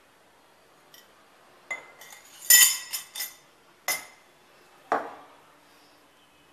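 Stainless steel murukku press parts clinking together: the ribbon pakoda disc going into the press cylinder, in a cluster of metal clinks, then two single knocks as the cylinder is handled on the stone counter.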